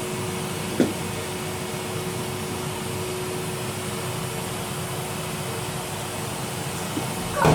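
Henry vacuum cleaner running steadily, a constant motor noise with one held tone, and a light knock about a second in.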